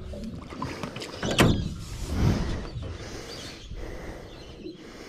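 Knocks and bumps in a small aluminium boat as hands work the Yamaha 15 outboard's cowling and tiller, the sharpest knock about a second and a half in and a duller thump shortly after.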